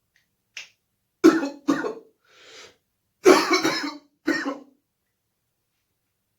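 A man with COVID-19 in a coughing fit: two coughs, a breath drawn in, then two more coughs.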